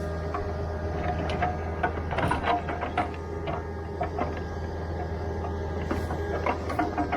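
Mini excavator's diesel engine running steadily, with irregular metallic clanks and rattles throughout.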